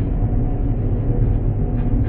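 Steady low rumble and hum of a container ship under way in heavy seas: engine and hull vibration, with no distinct events.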